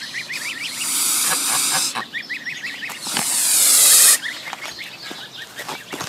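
White domestic goose hissing twice with its beak wide open, two long hisses, the second swelling louder, over a quick series of high peeps from its goslings.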